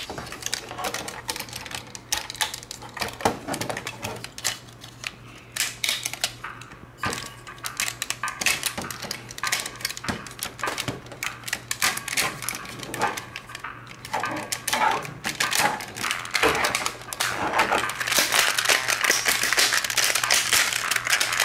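Hard plastic parts of a Hello Carbot transforming robot toy clicking and snapping as they are folded by hand from robot into car form. The clicks come irregularly and grow denser and louder near the end.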